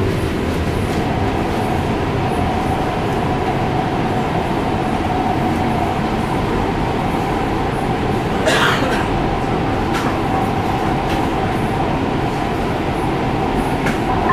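Inside a Kinkisharyo P3010 light rail car running between stations: a steady rumble of wheels on rail with a whine held at one pitch from about a second in. About eight and a half seconds in there is a brief sharp clatter, and a lighter one follows a second and a half later.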